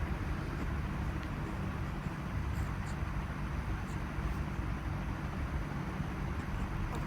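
Steady low rumble of a vehicle's engine and road noise.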